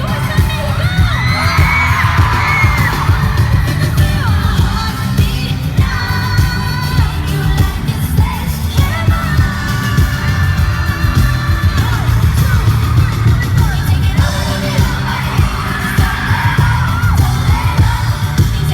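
A pop group singing live over a loud backing track with a heavy, distorted bass beat, while the crowd screams and sings along.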